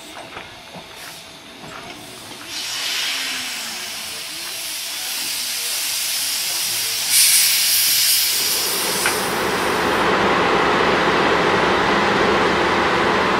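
Steam locomotive hissing steam. The hiss starts suddenly a few seconds in and swells to a loud blast about seven seconds in. Then, around eight and a half seconds, it gives way to the steady running noise of a moving train heard from on board.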